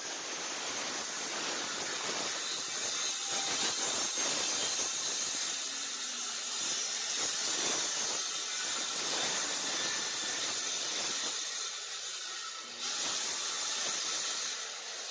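DeWalt circular saw running through a sheet of plywood in one long continuous cut, a steady high hissing whine of blade in wood. It dips briefly about three-quarters of the way through, then carries on cutting.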